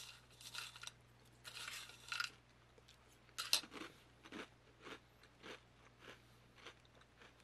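A mouthful of dry Apple Pie Toast Crunch cereal squares being crunched and chewed. There are two longer crunches in the first couple of seconds, then short chewing crunches about twice a second.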